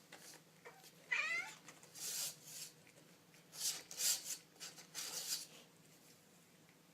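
A kitten gives one short, wavering meow about a second in, followed by a string of short, breathy, unpitched noise bursts over the next few seconds.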